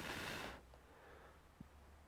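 A short, sharp breathy exhale lasting about half a second, followed by a faint tick about a second and a half in.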